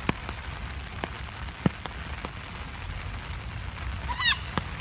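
Steady rain hiss with scattered sharp ticks of drops. A child gives a short high-pitched squeal near the end.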